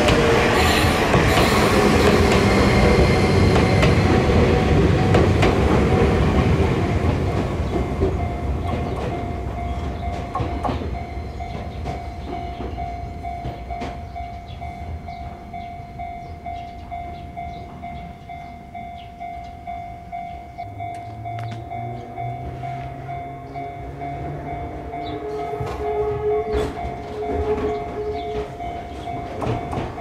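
An Enoshima Electric Railway (Enoden) train runs past a level crossing and fades away over the first seven seconds or so. The crossing's warning bell rings steadily throughout. Near the end a lower vehicle sound rises again.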